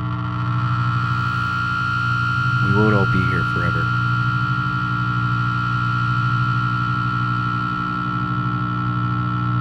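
A sustained electric drone of several held, steady tones, with a strong low hum underneath. About three seconds in, a short warbling sound wobbles up and down in pitch over the drone.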